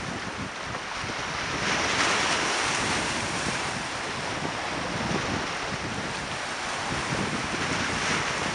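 Waves washing on a stone-lined shore, with wind buffeting the microphone; the rush swells about two seconds in and again near the end.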